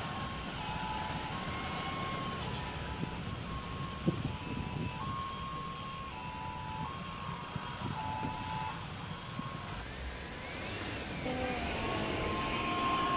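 Motor vehicles running close by, a steady low rumble, with an alternating two-note electronic beeping that repeats for about nine seconds. There is a single sharp knock about four seconds in, and near the end a rising whine and engine tones grow louder.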